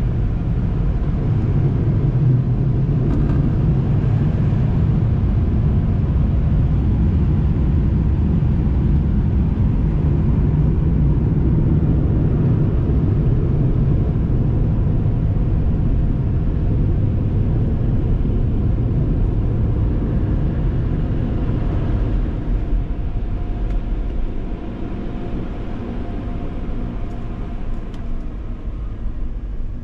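Car wash drying blowers running, heard as a steady low rumble through the closed cabin of the SUV; it drops in level about four-fifths of the way through as the vehicle pulls clear of them.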